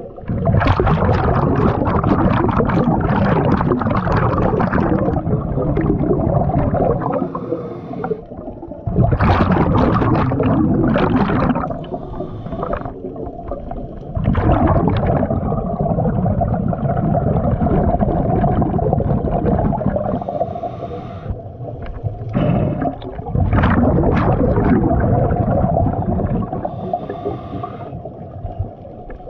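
Scuba diver's regulator breathing, heard underwater from a head-mounted GoPro: four long gurgling rushes of exhaled bubbles, each a few seconds long, with quieter inhalations between them. A faint steady hum runs underneath.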